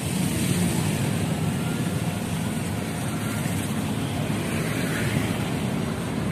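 Steady road traffic noise: a continuous low rumble of passing vehicles.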